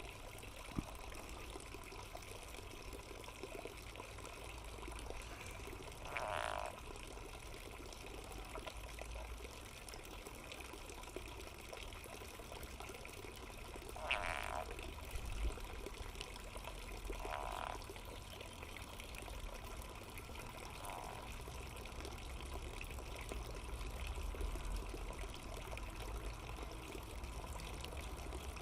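A frog being eaten by a snake, giving four short distress calls a few seconds apart, over a steady hiss like running water.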